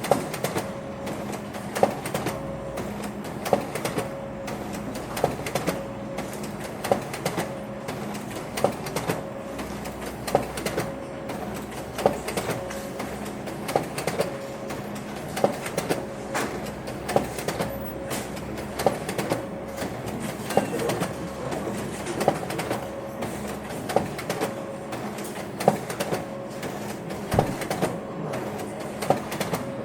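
Office printer running steadily, a constant hum broken by a mechanical clack every second or two.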